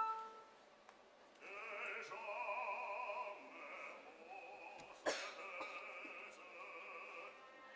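Operatic baritone voice singing with a wide vibrato, starting about a second and a half in after a brief hush. A single sharp click sounds about five seconds in.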